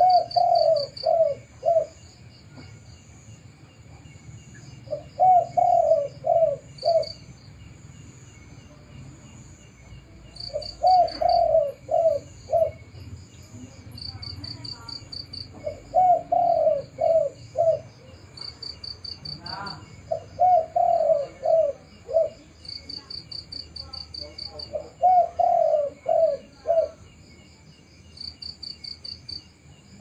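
Spotted dove (terkukur) cooing: a loud phrase of several quick notes, repeated about every five seconds. A high, fast-pulsed chirping runs behind it.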